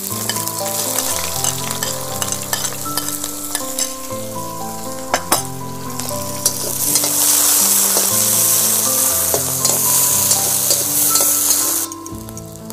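Sliced onions sizzling in hot oil in a metal wok, stirred with a metal spatula that now and then clicks and scrapes against the pan. The sizzle grows louder in the second half and cuts off suddenly near the end. Soft background music with slow held notes plays underneath.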